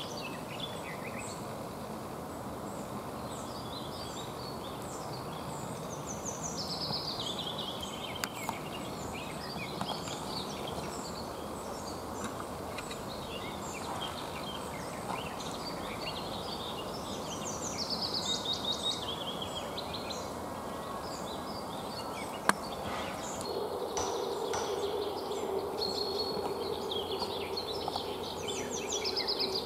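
Songbirds singing around a woodland pond: many short high chirps, and a song that runs down in pitch in steps, repeated about every ten seconds, over a steady outdoor hiss. One sharp click about two-thirds of the way through, and a low steady hum joins in near the end.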